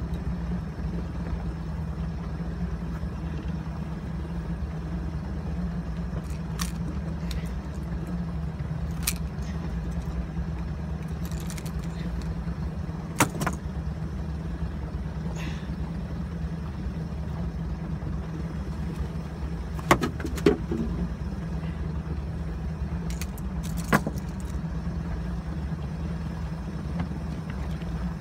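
Small fishing boat's engine running steadily at slow trolling speed, a constant low hum, with a few sharp clinks and knocks on board, the loudest about twenty seconds in.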